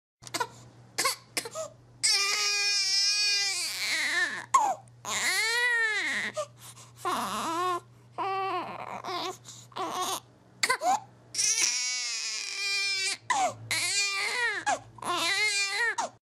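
Infant crying: a string of long, high wails that rise and fall in pitch, broken by short pauses and brief catches of breath.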